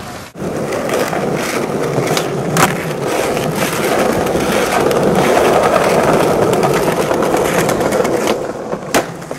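Skateboard wheels rolling over concrete paving, a steady rough roll that slowly builds, with sharp clacks about two and a half seconds in and again near the end.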